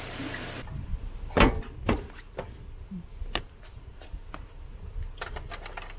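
Water rushing through the lock's gate paddles for the first half-second, then an abrupt change to a series of irregular knocks and clicks, the loudest about a second and a half in.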